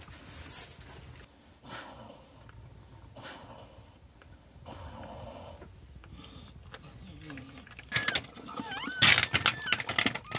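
Brittany bitch in labour breathing heavily, with long rasping breaths about every one and a half seconds. Near the end a newborn puppy gives high squeaky cries amid loud close crackling and licking noises as the mother works at it.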